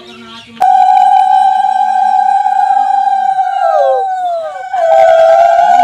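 Conch shell (shankha) blown in long, loud, steady notes. After a few seconds the note sags and falls in pitch as the breath gives out, then a fresh blast starts almost at once.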